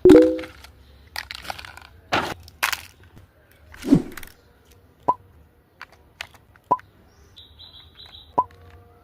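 Handling of a plastic toy: a loud knock at the start with a brief ringing tone, then about half a dozen sharp, widely spaced clicks and knocks. A short high steady tone comes near the end.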